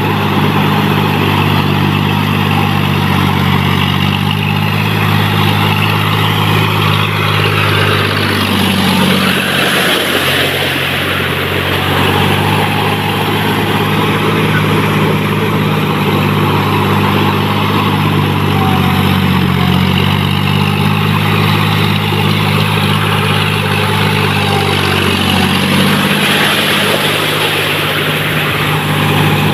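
John Deere 5045D tractor's three-cylinder diesel engine running steadily under load as its steel cage wheels churn through a flooded paddy field, with the splash and slosh of mud and water. The engine note dips briefly now and then.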